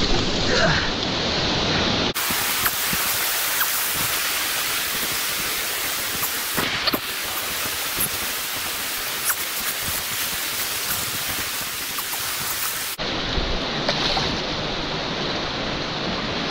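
River current rushing over rocks, a steady hiss of moving water with a few small clicks and splashes. About two seconds in the sound abruptly turns brighter and thinner, and switches back near the end.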